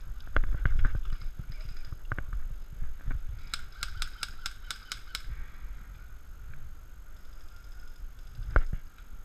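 Airsoft gun firing a quick string of about eight shots, roughly five a second, in the middle of the clip. Irregular knocks and thumps come near the start, and one sharp knock comes near the end.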